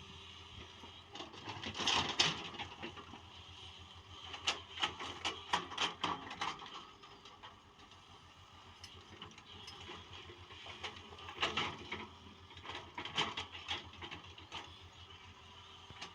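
JCB NXT 205 excavator working, its engine a steady low hum under four spells of clattering and scraping.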